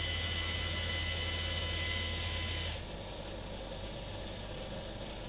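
Yaesu G-1000DXC rotator controller humming steadily while it drives the antenna rotor round to its new heading, then stopping about two and a half seconds in as the rotor gets there.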